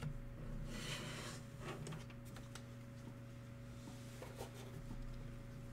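Trading cards being slid and set down on a stack: a brief papery rustle about a second in, then a few light taps, over a steady low hum.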